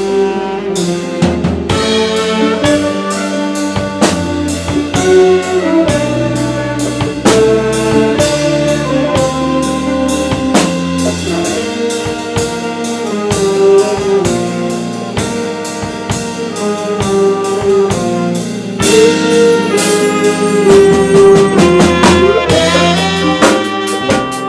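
Live jazz ensemble playing a fusion tune: trumpet and saxophones carry the melody over a drum kit with a steady beat, electric guitars and keyboard.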